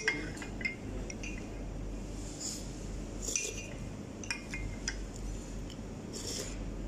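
White ceramic soup spoons clinking lightly and scraping against small ceramic bowls as two people eat soup: a dozen or so short, scattered clinks over a steady restaurant room hum.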